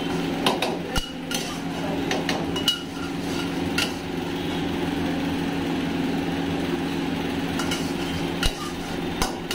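Metal ladle stirring in a steel wok, scraping and knocking against the pan several times at irregular moments, over a steady mechanical hum in the kitchen.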